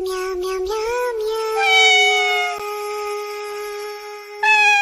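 Kitten meowing in long, drawn-out calls. After a few short notes it rises and falls about a second in, then holds one steady pitch for several seconds, and gives a louder, higher call near the end.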